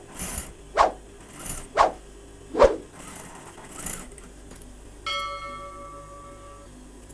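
Cloth being handled on a sewing table: rustling and several short soft thumps, roughly one a second. About five seconds in, a bell-like notification chime sound effect rings for about a second and a half.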